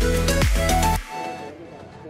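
Electronic background music with a heavy bass beat, which cuts off suddenly about halfway through, leaving faint background noise.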